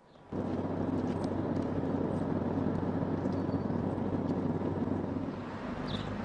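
A steady low mechanical hum, engine-like, over a rushing noise, starting abruptly just after the beginning and easing slightly near the end. A few faint high chirps sound above it.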